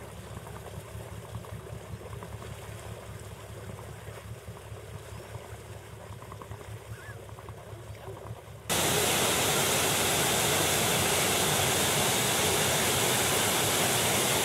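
Gusty low rumble, then about nine seconds in a sudden loud, steady rush of water.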